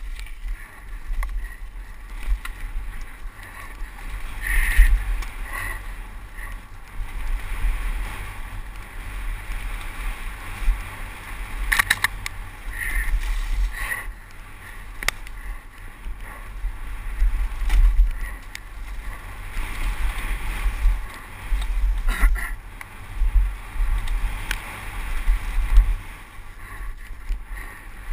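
Mountain bike descending a gravel and dirt downhill trail, heard from a helmet-mounted camera: wind buffets the microphone in gusting rumbles over a steady hiss of tyres on the loose surface. Sharp knocks and rattles from the bike come in a cluster about twelve to fifteen seconds in and again about twenty-two seconds in.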